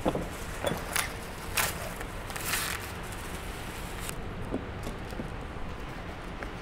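Handling noises from unpacking parts: a few light knocks and clicks and a short rustle in the first three seconds, over a steady low room hum.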